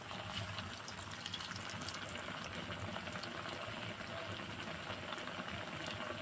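Wrapped chicken rolls deep-frying in hot vegetable oil: a steady sizzling and bubbling with many small crackles.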